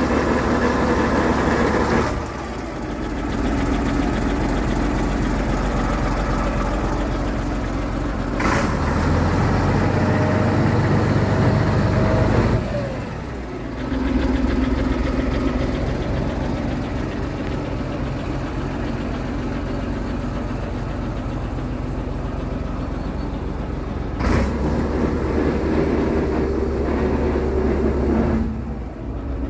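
Scania P 93HL truck's diesel engine idling steadily, its sound changing abruptly several times.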